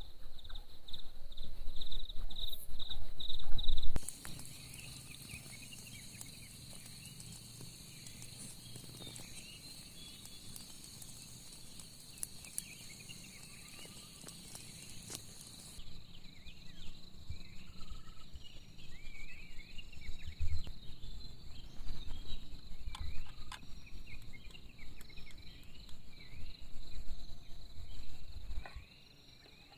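Night insects: a steady high insect drone, with short chirping calls over it in the second half. In the first few seconds there are loud low thumps, and the sound changes abruptly there and again near the end.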